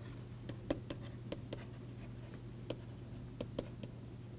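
Stylus writing on a tablet: irregular light taps and scratches as each letter is formed, over a low steady hum.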